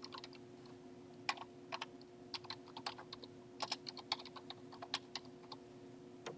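Typing on a computer keyboard: a run of soft, irregularly spaced keystroke clicks over a faint steady hum.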